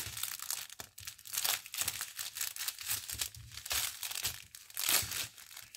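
Small clear plastic packet of diamond-painting rhinestones crinkling in the fingers as it is worked to tear it open, in irregular bursts of crackling.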